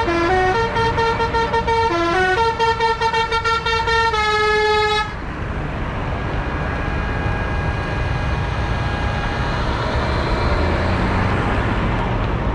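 A multi-note musical horn plays a tune of stepped notes, then cuts off suddenly about five seconds in, leaving the steady rumble of passing tractor engines.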